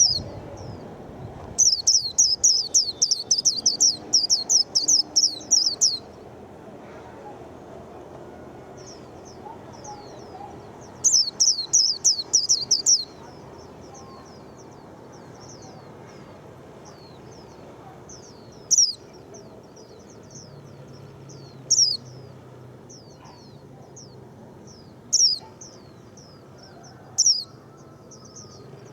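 White-eye singing. It gives two rapid, high trills of quick down-slurred notes, a long one starting about two seconds in and a shorter one around eleven seconds, then thin scattered chirps with a louder single call every few seconds.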